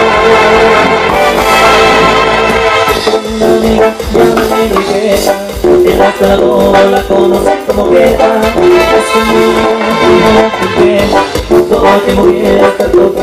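Loud live band playing tropical dance music through the stage PA, with keyboards and electronic drums and a steady dance beat.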